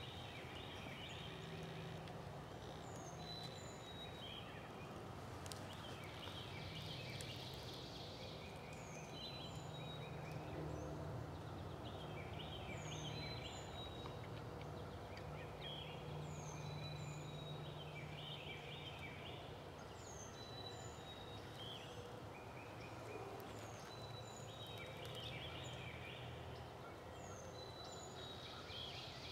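Dawn birdsong in the woods: a songbird repeats a short phrase of high falling notes every two seconds or so, with other birds chirping, over a faint low hum.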